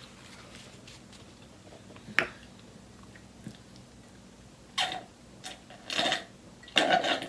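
Close-miked eating sounds: a sharp click about two seconds in, then a few short bursts of chewing in the last seconds.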